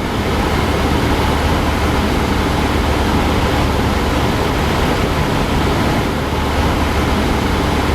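Cessna 172 Skyhawk's piston engine and propeller running with a steady, even drone at cruise power, heard from inside the cabin.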